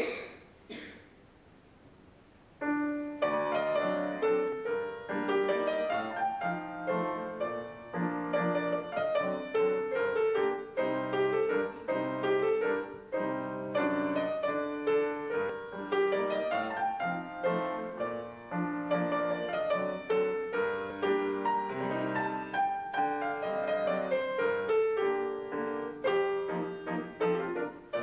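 Solo piano playing a continuous piece that begins about two and a half seconds in, after a couple of short noises in the first second.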